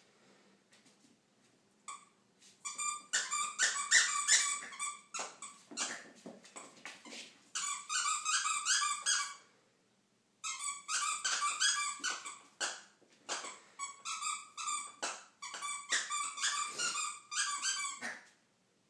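A dog's squeaky toy squeaking rapidly as a puppy chews it, several squeaks a second, in five or six long bursts with short pauses between.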